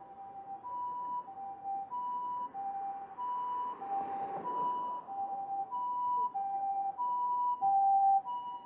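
Tokyo Fire Department ambulance's two-tone siren, alternating a high and a low note about every 0.6 s and growing louder as it approaches. A brief rush of noise swells midway.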